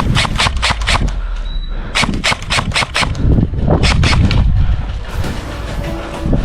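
Airsoft guns firing: strings of sharp, quick cracking shots, with a short pause about a second in before more rapid shots.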